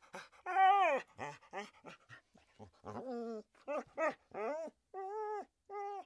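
A dog whining and yipping in a run of short, high, pitched calls, a few a second. The loudest comes about half a second in and slides down in pitch.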